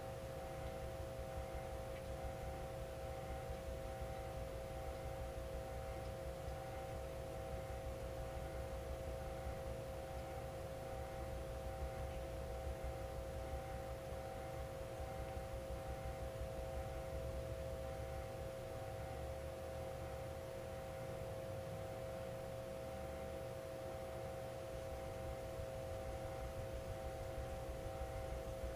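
Steady machine hum of several held tones, like commercial kitchen equipment running, with soft scraping of a knife blade being stroked across a wet whetstone beneath it.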